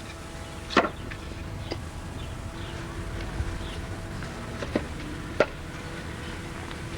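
Four sharp knocks of a hand tool striking wood, the loudest about a second in and another near five and a half seconds, over a steady low hum.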